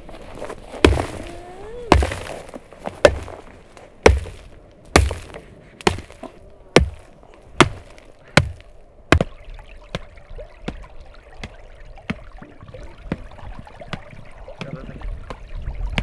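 Clods of dry, cracked clay soil being pounded and broken into small pieces: about ten sharp blows roughly a second apart, then lighter crumbling ticks. Near the end, shallow stream water trickles as a hand dips into it.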